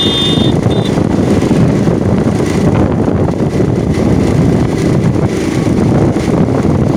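Wind buffeting the microphone of a motorcycle riding at speed, a steady loud rumble mixed with the bike's engine and road noise. A brief high-pitched tone at the very start.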